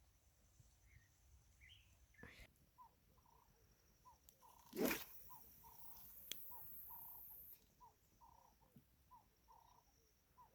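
Faint outdoor quiet with short animal calls repeating about twice a second, and a single sharp knock about halfway through.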